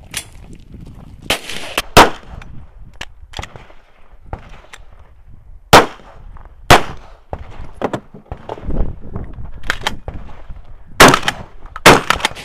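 Pistol and shotgun shots fired one at a time during a 3-gun stage: about five very loud shots spaced one to several seconds apart, with fainter sharp cracks and knocks in between.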